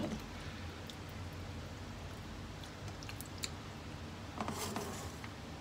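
Hands moving raw chicken leg pieces on a plate: a few faint soft pats and clicks over a steady low hum, a little busier about four and a half seconds in.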